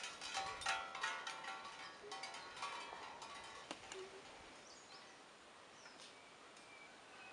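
Soundtrack music of struck, bell-like metallic tones ringing over one another. They thin out after about three seconds and fade to a faint hush.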